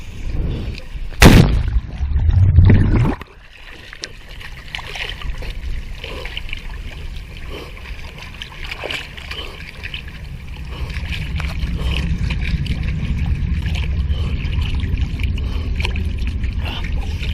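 A person jumps into cold sea water: a loud splash about a second in, then a couple of seconds of churning water that cuts off abruptly. After that comes a steady sloshing and lapping of sea water, which grows louder over the last several seconds.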